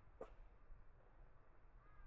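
Near silence in the bush, broken by one sharp tap, like a footstep or a knock, just after the start. A faint animal call of two arching tones begins near the end.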